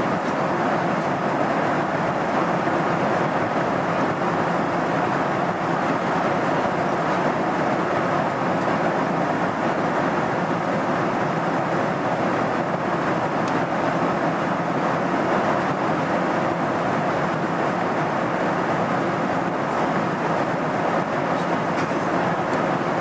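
Steady cabin noise of a jet airliner in flight, the engines and rushing air heard from inside the passenger cabin as an even, unchanging noise.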